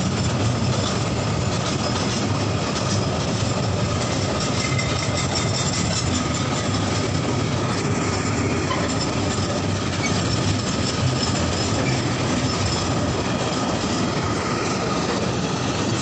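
A freight train's container flat wagons rolling past close by: a steady rumble of steel wheels on the rails, with clattering over the rail joints and a faint thin squeal from the wheels.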